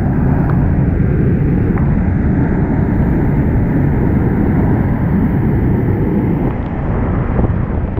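Loud, steady rush of whitewater heard from the kayak itself as it runs a steep rapid, a deep continuous churning with no break.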